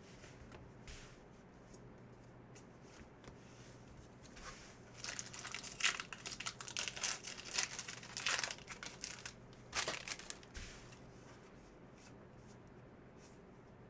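A foil trading-card pack wrapper being torn open and crinkled: a run of sharp crackling and tearing sounds lasting about five seconds, starting about five seconds in.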